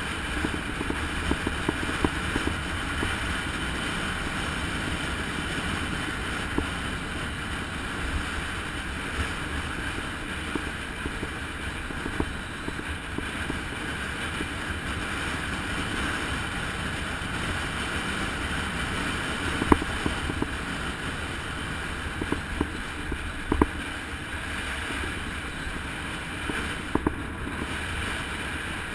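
Steady rushing wind on the microphone over road rumble from a fast downhill ride, with a few short knocks from bumps in the road.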